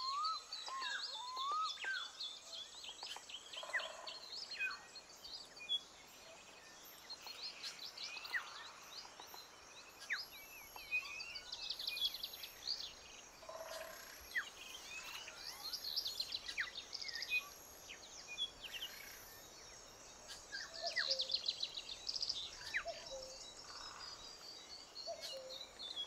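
Birds chirping and singing, several calls overlapping, with rapid high trills coming back every few seconds.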